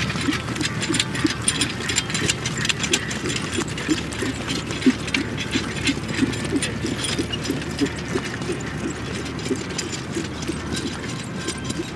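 A pair of horses trotting in harness, pulling a four-wheeled carriage: a steady, rapid clicking and rattling from the carriage and harness over a quick run of dull hoofbeats on grass.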